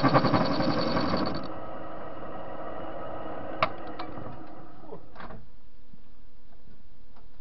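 TV-16 lathe running while boring a metal washer: a loud, evenly pulsing machine sound for about the first second and a half, then it drops to a quieter steady running with a sharp click a few seconds in and a few faint ticks.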